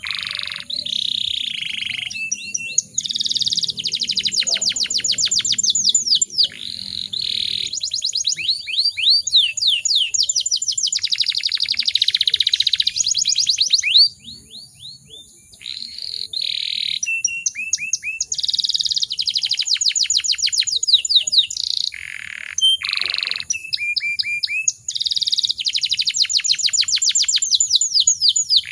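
Canary singing in long phrases of fast trilled notes and rolls, one phrase running into the next, with a short break about halfway through.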